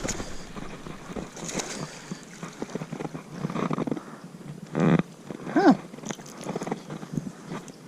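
Handling noise while a small bass is reeled in and landed on a dock: irregular rustling and clicking, with a short, louder burst of noise about five seconds in.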